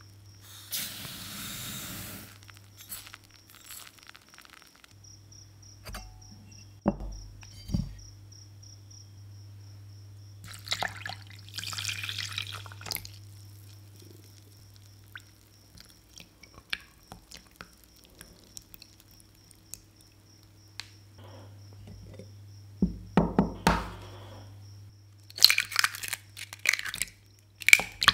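Cake-batter ingredients going into a glass bowl. Granulated sugar pours in with a brief grainy hiss near the start, and milk pours in about ten seconds later. A cluster of sharp cracks near the end comes as eggs are broken into the bowl.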